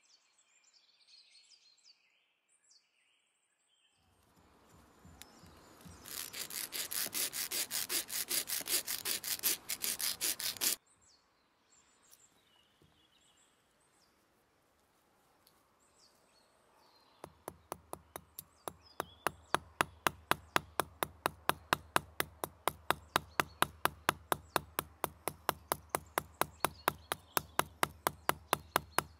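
A replica Viking-age iron hand file rasping in fast, even strokes for about six seconds, stopping suddenly. A little past the middle, steady light hammer taps begin, about three or four a second, peening the rivet that holds the bronze belt buckle.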